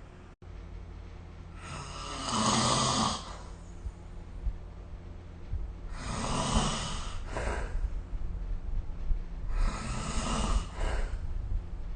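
A sleeping person snoring: three snores about four seconds apart, each a low rasp lasting a second or more.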